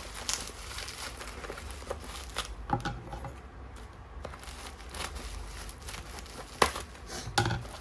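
Bubble wrap and packing tape crinkling and tearing as a package is unwrapped by hand, with many small crackles and one sharp click about two-thirds of the way through.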